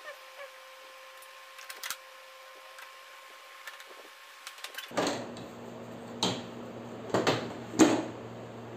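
Plastic casing of a split AC indoor unit being handled: faint clicks and taps at first, then about four sharp plastic clacks and knocks in the second half as the cover and front panel are pressed shut.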